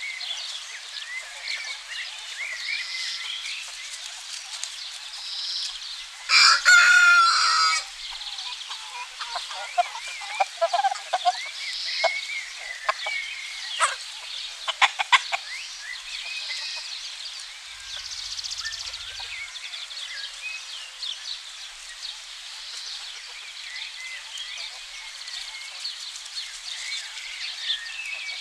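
A rooster crows once, loud, about six seconds in, over the steady chirping of small wild birds. Hens cluck softly after it, with a few short sharp sounds around the middle.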